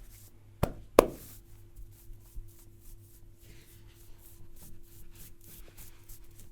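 Hands massaging: two sharp snaps in quick succession about a second in, the second louder, followed by soft rubbing and light ticking.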